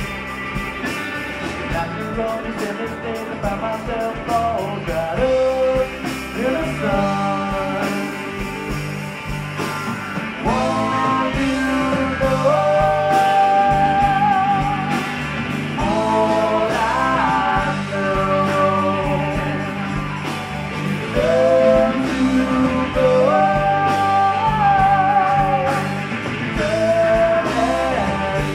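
Live band playing, with a woman singing lead over electric guitars and drums. Her held notes carry a wide vibrato, and steady drum and cymbal hits run underneath.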